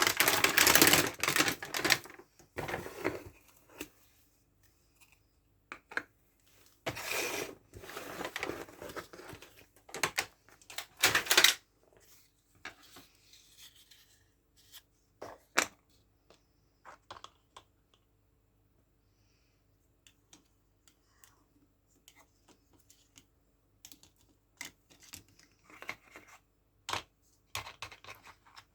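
Toy packaging being unwrapped: plastic and paper tearing and rustling in a few short spells, then scattered light clicks and taps as small plastic toy kitchen pieces are handled and set down.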